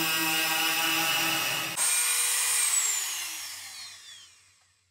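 Corded Dremel rotary tool with an abrasive cutoff wheel grinding through a padlock shackle. After nearly two seconds the grinding stops, and the motor whines on briefly, then winds down with a steadily falling whine until it goes quiet.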